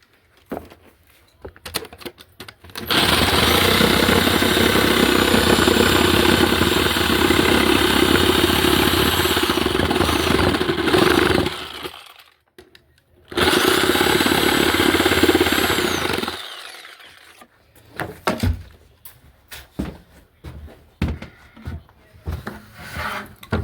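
Electric power saw cutting wood in two runs, about eight seconds and then three seconds long, its motor whine falling away as it spins down after each cut. Then a few light knocks and taps of wood being handled.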